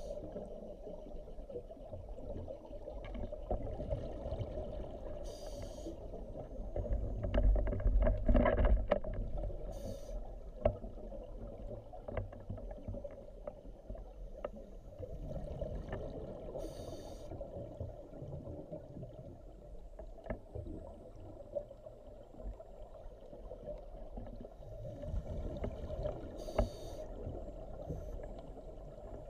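Underwater sound of a scuba diver breathing on an open-circuit regulator, heard through a camera housing: a short hiss every several seconds and a louder bubbling rumble of exhaled bubbles about a quarter of the way through, over a steady low hum.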